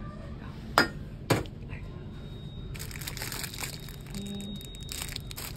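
Two sharp knocks about a second in, then plastic-wrapped packs crinkling and rustling as they are handled from about halfway through.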